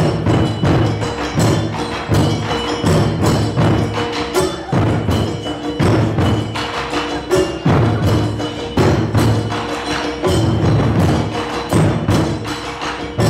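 Taiko drum ensemble playing a driving rhythm: deep strokes on a large drum on a tall stand, repeating about once a second, under quick sharp hits from smaller drums.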